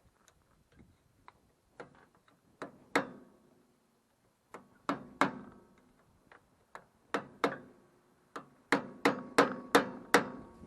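Hammer blows on steel, working at a stuck pin in a double roller chain coupling. The blows are sharp and ringing and come in loose groups after a few light taps, with the quickest and loudest run, about three a second, near the end.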